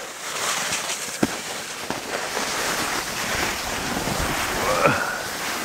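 Wind rushing over the microphone and the hiss of skis sliding over snow during a downhill ski run.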